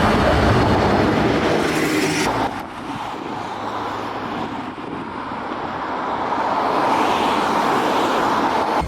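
A rail vehicle running along the tracks, a steady rumble that drops abruptly about two and a half seconds in, then builds again toward the end.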